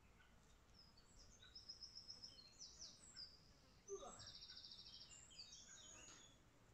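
Faint songbird singing: quick, high chirps and whistled notes, with a fast trill about four seconds in. A brief sound dropping in pitch comes at the start of the trill.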